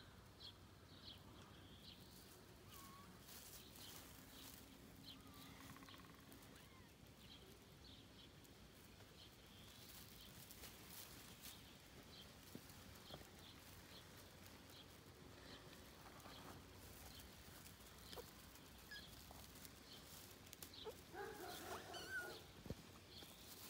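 Faint outdoor quiet with small birds chirping now and then, and a kitten giving a few thin, faint mews, the clearest cluster near the end.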